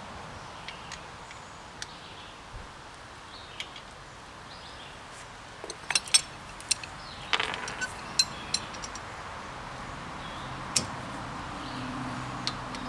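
Irregular metal clinks and clicks of a socket and ratchet on the front brake caliper bolts, mostly in a cluster about six to nine seconds in, against a quiet background.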